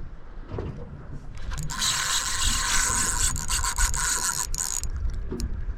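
Fishing reel rasping for about three and a half seconds while a hooked fish is fought, the whirring drag or gearing giving a harsh, finely pulsing buzz.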